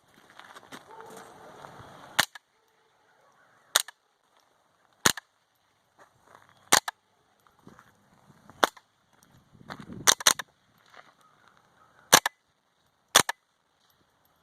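Smith & Wesson M&P15-22 with an integrally suppressed ARMTAC Monotube barrel firing .22 LR high-velocity rounds semi-automatically. About nine shots come one to two seconds apart, with two in quick succession around ten seconds in. The ported barrel slows the high-velocity rounds to subsonic. A faint rustling noise is heard in the first two seconds.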